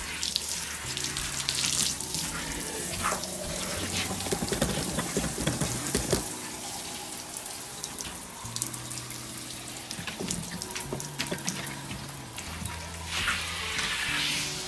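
Water spraying from a garden hose nozzle onto a Great Dane's wet coat and spattering on the deck boards. The spray gets louder near the end.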